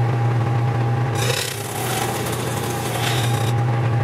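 Metal lathe running with a steady motor hum, and a cutting tool scraping on the spinning workpiece from about a second in until shortly before the end.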